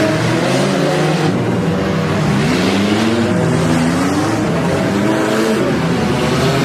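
Several demolition derby cars' engines running at once, revving so their pitches rise and fall against one another.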